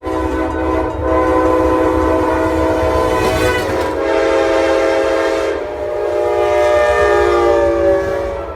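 Amtrak train's multi-chime air horn blowing a long, nearly unbroken chord as the train passes, its pitch dropping partway through, over the low rumble of the train.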